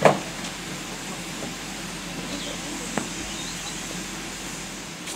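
A single sharp metal clank, the loudest sound, right at the start as a railwayman handles fittings at the front of an LMS Ivatt Class 2 2-6-2T steam tank engine, then a fainter click about three seconds in. Underneath is the steady hiss of the locomotive standing in steam.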